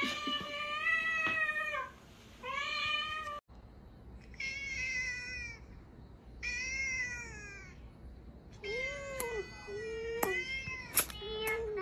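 Domestic cat meowing over and over: long, drawn-out meows, about seven in all, with a sharp click or two near the end.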